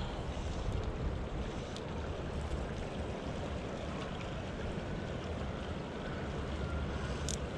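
Shallow creek flowing steadily over a gravel bed, an even rushing of water, with a few light clicks, the loudest near the end.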